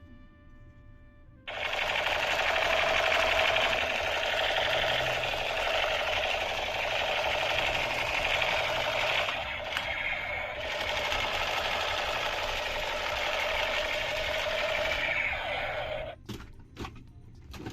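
A small battery-powered toy motor and gearbox running with a loud, rapid, steady rattle. It starts abruptly about a second and a half in, dips briefly around ten seconds, and stops near the end, followed by a few clicks.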